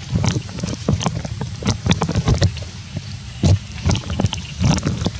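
Macaque chewing food, heard as irregular clicks and crackles over a steady low rumble of wind on the microphone.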